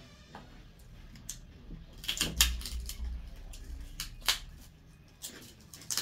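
Close-up eating noises: a run of sharp, irregular crunchy clicks from chewing and handling food, with a brief low thump a little over two seconds in.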